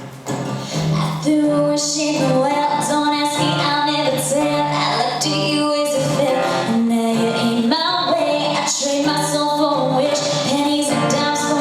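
Pop song music coming in fully about a second in: a female voice singing a melody over steady low accompaniment.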